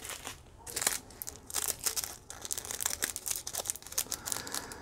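A small clear plastic bag of diamond painting drills crinkling in irregular crackles as it is picked up and handled.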